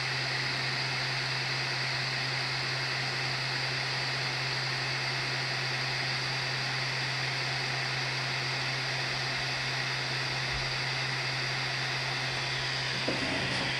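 3D printer's hotend cooling fan running steadily with the nozzle heated: an even whirr and hiss with a constant low hum underneath.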